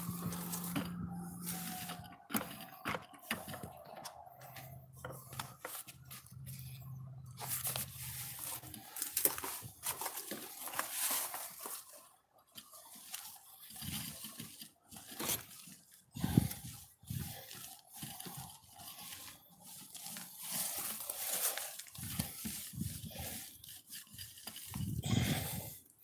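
Paint roller loaded with thick white waterproofing coating rolling over a shed's wall panel: a sticky, crackling rasp broken by irregular knocks and scrapes.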